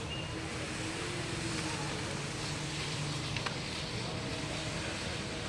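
Strong waves washing onto the beach with wind, a steady even rush, with a faint low hum underneath.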